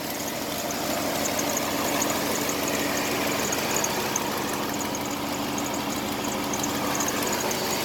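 GM truck V8 engine idling steadily, running again after it had seized from oil loss when the oil cooler hose came off the filter adapter.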